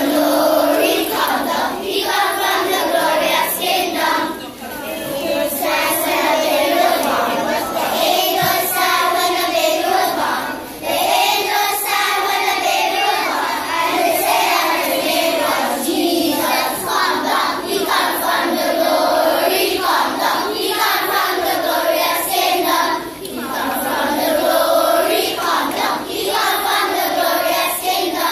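A children's choir singing a Christmas carol, with brief pauses between phrases.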